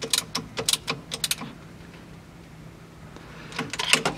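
Ratchet wrench with a 12 mm socket clicking in short irregular runs as it tightens the power steering belt adjuster bolt. There is a pause of about two seconds in the middle.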